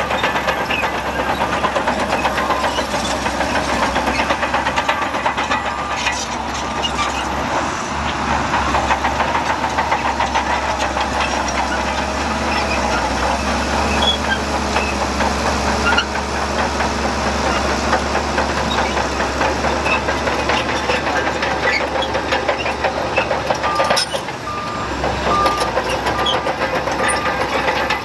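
Diesel engines of heavy earthmoving machinery (a bulldozer and dump trucks) running steadily under load. Short repeated beeps, like a reversing alarm, come in near the end.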